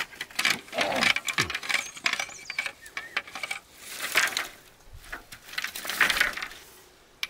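Thin green bamboo canes clattering and knocking against each other, with leaves rustling, as they are picked up and handled; many short irregular clicks, with bursts of rustling about a second in, near the middle and about six seconds in.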